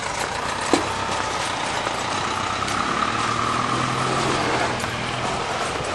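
Diesel locomotive engine idling: a steady low hum with a high whine above it, the engine note stepping up slightly about three seconds in. A single sharp click about a second in.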